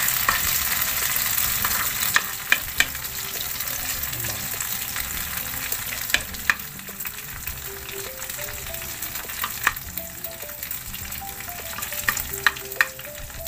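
Squash-and-egg batter sizzling in hot oil in a black skillet over a wood fire, loudest in the first couple of seconds and then settling to a steady fry. Sharp clicks of the spoon against the pan come every few seconds as more batter is spooned in and spread.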